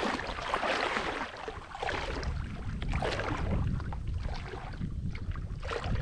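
Water sloshing and splashing in irregular bursts as someone moves through swamp water, with a low wind rumble on the microphone.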